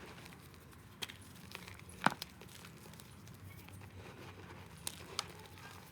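Balls of reformed gym chalk being crushed: a few sharp crunching cracks, the loudest about two seconds in and two more near the end.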